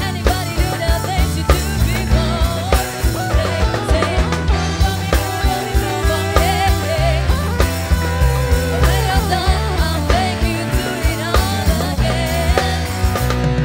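A female vocalist singing into a microphone over a live band, with a steady drum beat.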